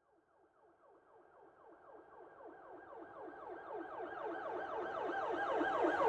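Police siren sounding a fast yelp, several pitch sweeps a second, fading in from silence and growing steadily louder as it approaches.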